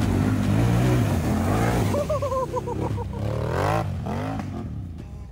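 ATV engine revving hard as the quad spins its tyres through mud and snow, the engine note rising and falling with the throttle. The sound fades in the last second or so.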